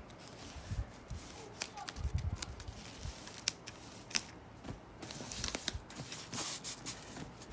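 Scissors snipping through tape and plastic wrap on a leather bag strap: a string of sharp snips, with crinkling of the plastic wrap about two-thirds of the way through.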